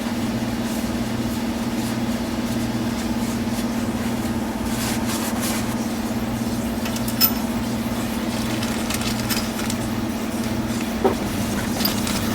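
A steady low mechanical hum, with a few light clicks of small valve spring washers being set into the cylinder head, one about seven seconds in and another near eleven seconds.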